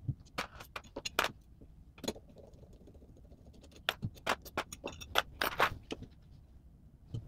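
Scattered sharp clicks and clinks of small metal hardware being handled: screws, nuts and a POM wheel taken off a 3D printer tool-head plate and dropped into a plastic tub.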